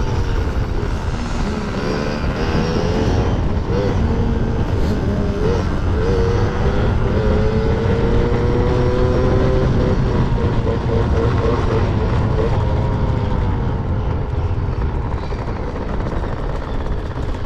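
Yamaha PW50's small two-stroke single-cylinder engine running under racing throttle, its pitch wavering, rising and falling as the throttle opens and closes, over a steady low rumble.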